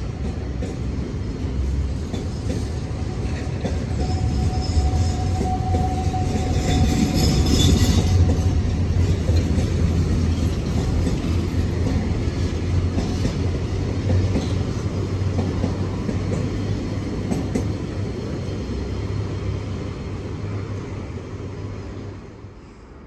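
Container freight train's wagons running past on the rails: a steady rumble of wheels on track that is loudest about a third of the way through, then fades and drops away as the last wagon passes near the end.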